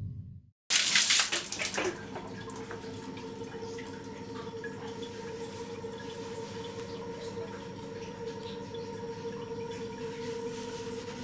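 Water splashing about a second in, then a steady trickle and drips of water over a steady low hum.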